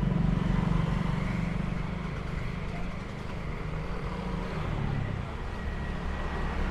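City street traffic: a motor vehicle engine running close by, loudest over the first two seconds and then easing off, over a steady background hum of traffic.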